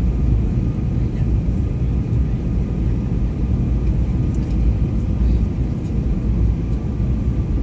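Airliner cabin noise during the descent before landing: a steady, loud rumble of engines and airflow, with a faint steady high hum on top.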